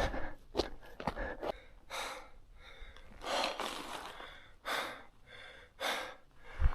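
A hiker breathing hard after a long, steep climb: four heavy, hissing breaths about a second apart, with a few short footstep clicks in the first second and a half.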